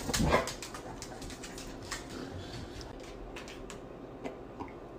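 A dog gives one short vocal protest with a falling pitch, a sassy grumble-bark at being told no more treats. Faint clicks follow.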